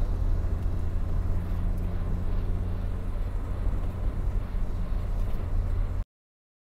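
Steady low rumble of a moving car heard from inside the cabin, with a faint steady hum over it; it cuts off abruptly about six seconds in.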